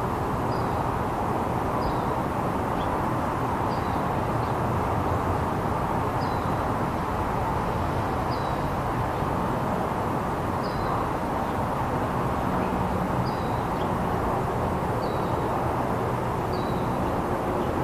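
Steady low rushing background noise, with a small bird chirping: about ten short, high, down-slurred chirps spaced roughly two seconds apart.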